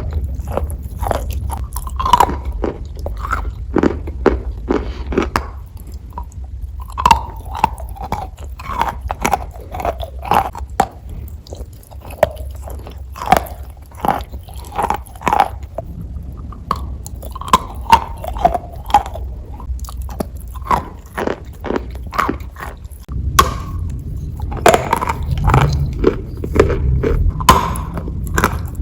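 Chalk being bitten and chewed right at the microphone: a stream of sharp, irregular crunches, several a second at times, with short pauses between bouts.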